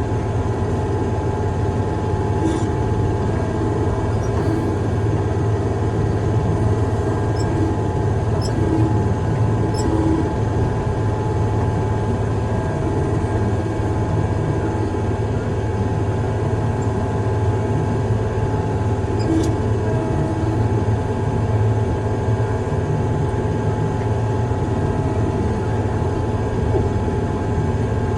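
Heavy diesel engine of a piece of construction equipment running steadily under even load, a constant low drone with a steady whine above it.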